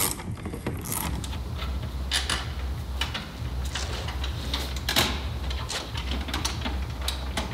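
Irregular clinks and knocks of metal suspension parts and hand tools being handled, over a steady low hum.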